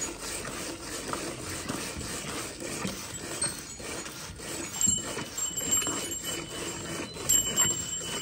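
Cow being milked by hand: squirts of milk hitting the frothy milk in a steel bucket, repeating in a steady rhythm.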